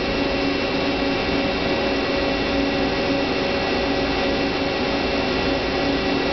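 Hyundai HiT-30M CNC turning center running: a steady machine hum with a few constant tones.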